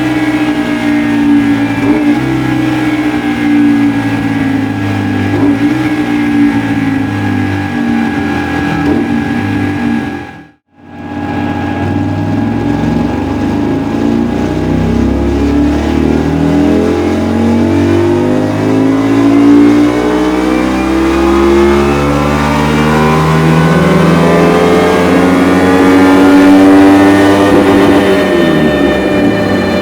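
Honda Varadero 125's V-twin engine running through a Dominator aftermarket muffler, the revs rising and falling. After a brief cut to silence about a third of the way in, the revs climb slowly and steadily for about fifteen seconds, typical of a dyno run.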